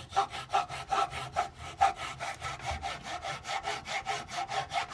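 Hacksaw cutting two thin wooden strips together at a 45-degree mitre in a homemade jig. The blade rasps back and forth in quick, even strokes, about five a second.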